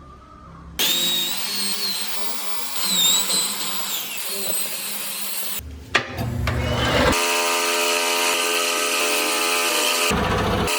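Electric power tools working wood. First a tool runs with a high whine that rises and falls in pitch, then from about seven seconds in a steady motor hum.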